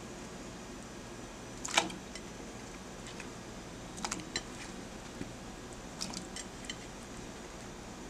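Chunks of raw squash dropped one at a time into a pot of water, each landing with a short plop or splash; the first, about two seconds in, is the loudest, followed by a few smaller ones.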